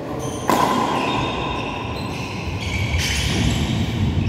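Badminton rally in a large, echoing hall: racket strikes on the shuttlecock, a sharp hit about half a second in and another about three seconds in, each ringing on in the room.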